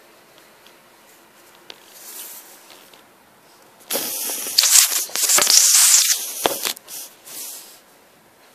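Handling noise: close rubbing and scraping on the recording device, loudest in a burst of about three seconds near the middle, with fainter rustles before and after.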